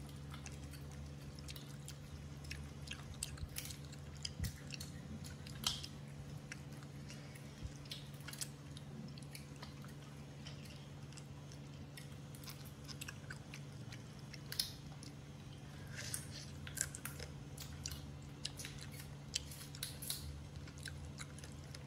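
Baby macaques chewing on pieces of cooked meat: a scatter of short smacks and clicks, over a steady low hum.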